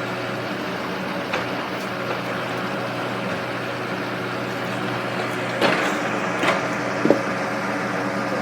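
Diesel engine of a Komatsu PC75 excavator running steadily as it loads a truck. Three sharp knocks come in the second half.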